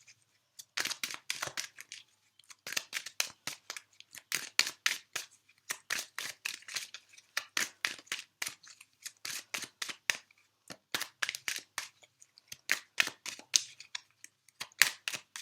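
A tarot deck being shuffled by hand: rapid dry clicks and slaps of cards in several runs, with short pauses between them.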